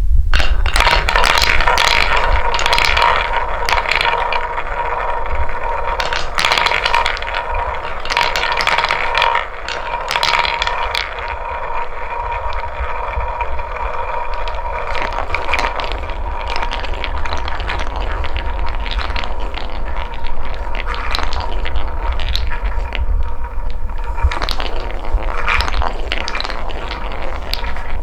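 Balls rolling and clattering down a wooden marble run track: a continuous rolling rattle full of clicks as they knock against the wooden pieces, over a steady ringing tone.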